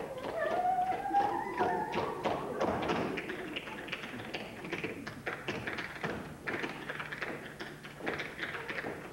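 Tap dancing on a stage floor: quick, dense tap-shoe strikes throughout, with music playing underneath and a rising held note in the first couple of seconds.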